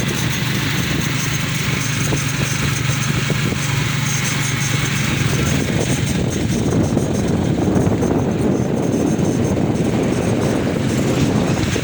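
A motor vehicle engine running steadily, with a rougher, louder stretch from about six seconds in until near the end.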